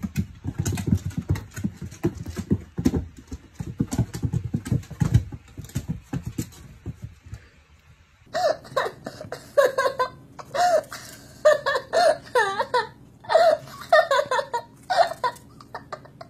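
A quick run of low knocks and thumps, then, from about halfway, an animal calling over and over in short calls that bend up and down in pitch.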